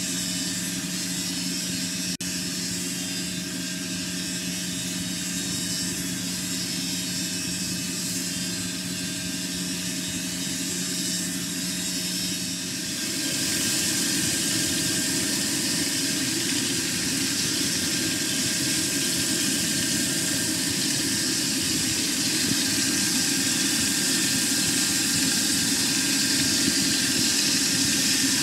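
Large crankshaft grinding machine running with a steady hum; about 13 seconds in it gives way to a louder, even hiss as the grinding wheel works a crankpin of a big diesel-engine crankshaft with coolant spraying.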